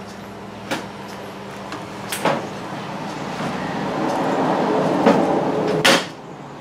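Hand-work noises: a few sharp clicks and a rubbing, scraping sound that grows louder over a few seconds and stops abruptly.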